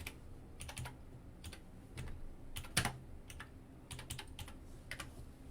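Typing on a computer keyboard: irregular runs of light key clicks, with a sharper click near the middle.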